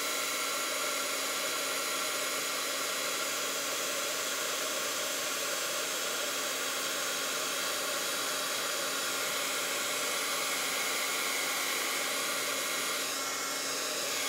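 Handheld embossing heat tool blowing steadily, a constant fan noise with one low steady tone, as it melts silver embossing powder on stamped cardstock.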